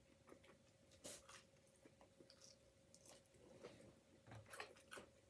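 Faint chewing and mouth sounds of someone eating gravy-covered onion-ring poutine: soft wet clicks and crackles, the clearest about a second in and a few more near the end.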